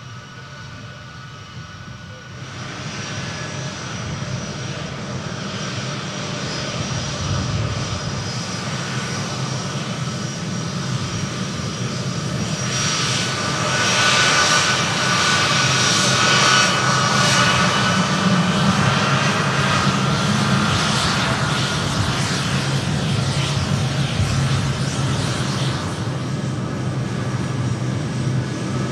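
The four Pratt & Whitney F117 turbofans of a Boeing C-17 Globemaster III at taxi power: a steady jet whine with several high tones over a low rumble. It grows louder about two seconds in and is loudest in the middle as the aircraft passes close.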